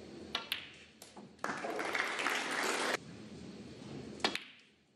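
Sharp clicks of snooker balls striking one another, a few in the first second and one more near the end. In between, a short burst of audience applause about a second and a half in that cuts off abruptly.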